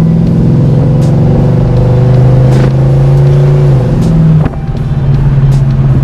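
1969 Oldsmobile Cutlass 442's V8 heard from inside the cabin while driving, running steadily under throttle, then easing off about four and a half seconds in, when the engine sound drops in level and carries on quieter.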